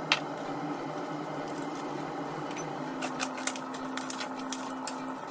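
A steady hum with a held tone, broken by a sharp click near the start and a few quick clicks and taps about three seconds in.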